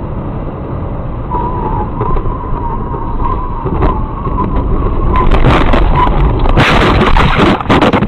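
Road and engine rumble heard from inside a moving car, with a faint wavering high tone. From about five seconds in come loud bangs and a burst of crashing noise: the car crashing against a truck.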